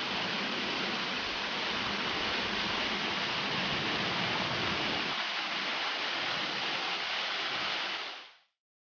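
Waterfall pouring down, a steady rushing of water that cuts off suddenly near the end.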